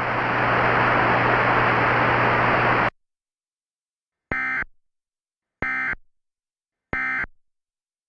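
Steady static hiss with a low hum that cuts off suddenly about three seconds in. After a second of dead silence come three short, identical bursts of warbling digital data tones, about 1.3 s apart: the Emergency Alert System end-of-message (EOM) SAME header bursts, which close an EAS alert.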